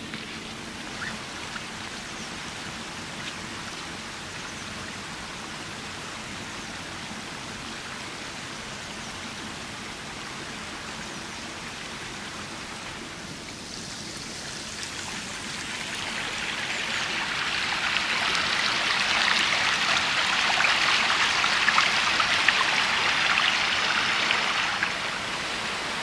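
Small stream running, a steady rush of flowing water that grows clearly louder about fifteen seconds in.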